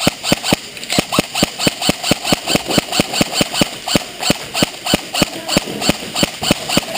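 Rapid, very regular clicking, about four to five sharp clicks a second at an even loudness, stopping shortly after the end.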